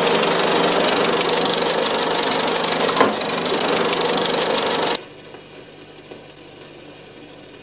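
Fast, steady mechanical rattling, like a small machine running, with one sharper knock about three seconds in. It cuts off suddenly about five seconds in, leaving only a faint hum.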